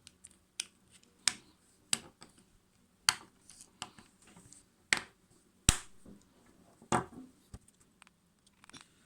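A Vaporesso Xros Pro pod vape being handled on the repair bench: about nine sharp clicks and taps at irregular intervals, with fainter ticks between them.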